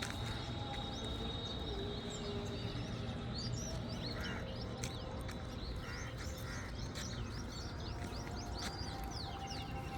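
Several small birds chirping and calling in quick, overlapping short notes, over a steady low background rumble.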